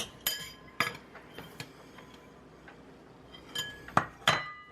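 A handful of sharp clinks of utensils against glass dishes while dry seasonings are measured and mixed, several leaving a short ring. They are spaced irregularly, with a quieter stretch in the middle and the loudest clinks near the end.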